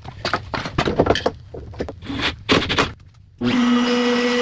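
A string of irregular wooden knocks and clatter, then about three and a half seconds in an electric router switches on and runs steadily, ready to cut a door hinge mortise.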